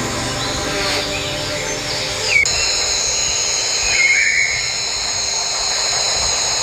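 Short bird chirps over a steady high-pitched drone. A held musical tone bed plays for the first two seconds or so and cuts off abruptly.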